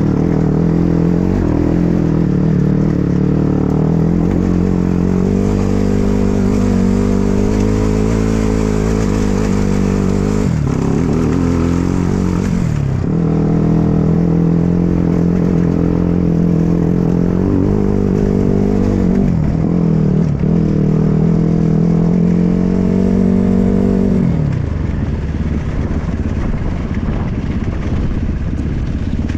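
Dirt bike engine running under load while riding off road, holding steady revs, with the throttle backed off briefly several times so the pitch drops and then picks up again.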